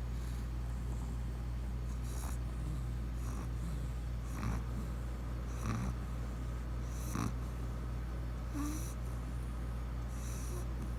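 Pug snoring, one short snore breath roughly every second and a half, over a steady low hum.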